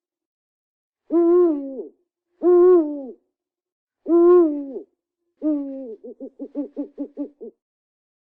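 Owl hooting: four separate hoots, each under a second and dropping in pitch at the end, then a quick run of short stuttering hoots at about seven a second that cuts off.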